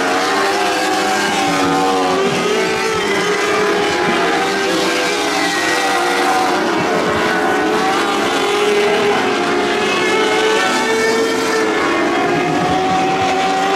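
Several winged sprint car engines running together around a dirt oval, their pitches rising and falling against each other as the cars accelerate and back off through the turns.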